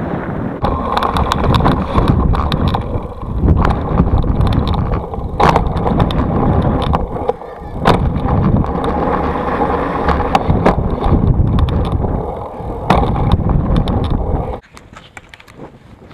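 Mountain bike riding over dirt jumps, heard from the rider's camera: wind buffeting the microphone and tyres rumbling on dirt, with sharp knocks and rattles from the bike. Near the end the noise cuts abruptly to a much quieter rumble.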